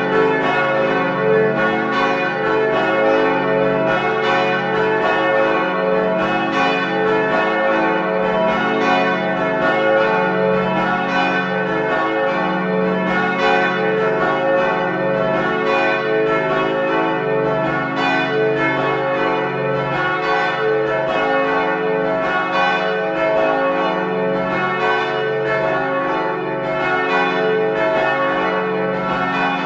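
Carillon bells ringing, with strike after strike overlapping into a continuous, steady peal.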